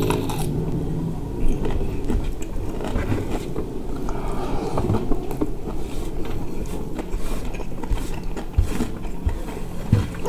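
Close-up chewing and mouth sounds of eating rice by hand, with fingertips scraping rice grains off a metal baking tray in short clicks and scrapes, over a steady low rumble.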